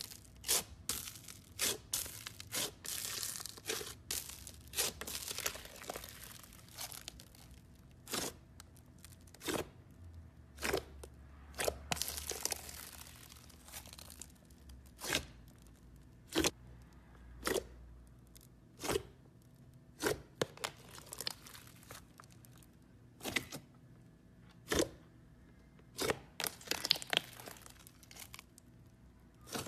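Green slime being squeezed, stretched and folded by hand: sharp wet pops and clicks about once a second, with stretches of dense crackling as the bubbly slime is pressed, mostly in the first half.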